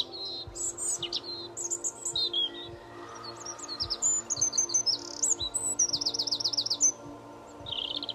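Songbirds chirping and singing in quick runs of high notes, with a fast trill about six seconds in, over soft background music of held tones.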